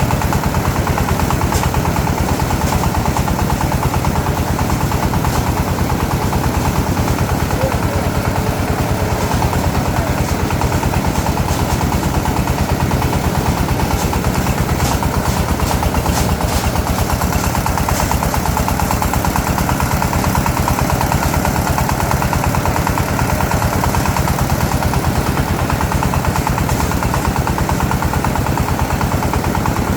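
A small engine running steadily at an even speed, with a fast, regular pulsing beat.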